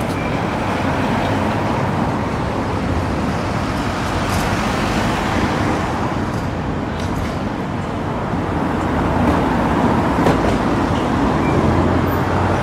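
City street traffic: cars and a bus driving past, a steady mix of engine and tyre noise that grows a little louder near the end.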